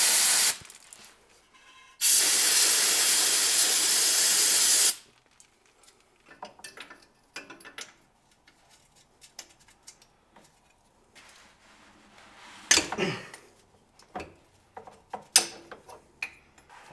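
Aerosol spray can sprayed in a short burst, then in a longer burst of about three seconds, onto a brake line fitting. Afterwards there are faint metallic clicks and taps of hand tools on the fitting.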